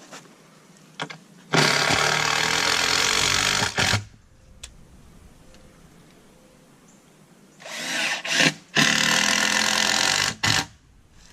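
Power drill running in two bursts of a few seconds each; the second starts, stops briefly and runs again.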